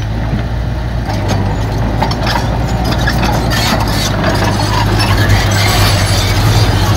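Heavy earthmoving machine's diesel engine running steadily, with scattered clanks and rattles, growing slightly louder over the last couple of seconds.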